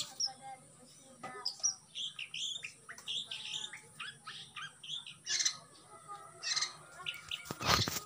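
Caged long-tailed shrike (pentet) singing: a quick, varied string of short chirps and whistles, broken by a couple of harsh rasping notes in the second half. A loud rush of noise just before the end.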